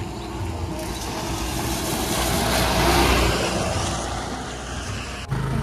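Motor scooter on the move: its small engine running under tyre and wind noise that swells to a peak about three seconds in and then eases, with an abrupt cut shortly before the end.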